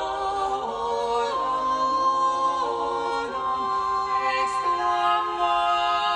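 Background music: a choir singing unaccompanied, several voices holding long notes that change pitch step by step.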